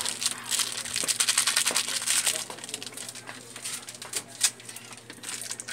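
Small plastic bag holding a brake master cylinder repair kit being handled and crinkled, dense for the first couple of seconds, then lighter rustles and clicks with one sharp click about four and a half seconds in.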